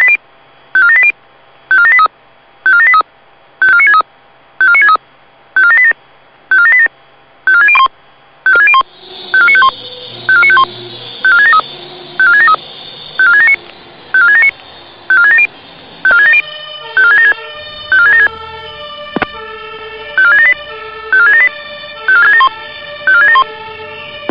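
Fire-service alarm tones: short electronic multi-tone beep sequences repeating about once a second, the alert that comes ahead of a spoken radio alarm dispatch. A layer of sustained, music-like tones joins about nine seconds in and grows busier past the midpoint.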